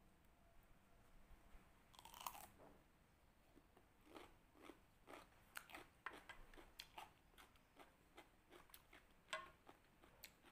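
Faint crisp crunching of someone biting and chewing raw Japanese cucumber. A louder crunching bite comes about two seconds in, then a run of quick crunching chews, and another louder crunch near the end.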